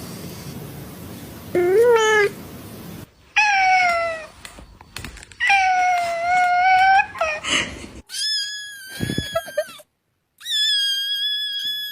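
Cats meowing, about five separate meows: a short one rising and falling about a second and a half in, then longer drawn-out meows, the last two higher-pitched and held steady.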